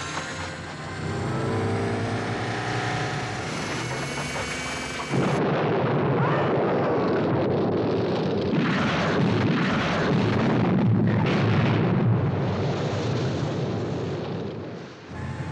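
Film sound effects of speedboats exploding on the water. About five seconds in, a sudden loud blast cuts in over the music, followed by a long stretch of explosions and rumbling that dies away near the end.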